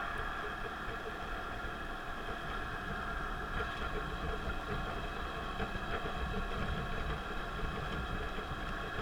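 Car driving on an expressway: steady engine and road noise with a constant hum.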